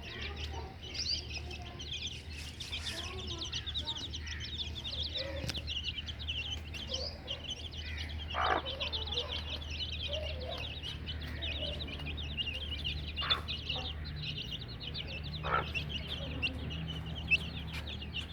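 A brood of chicks peeping without pause: many short, high chirps overlapping one another, with a few lower calls here and there. A steady low hum runs underneath.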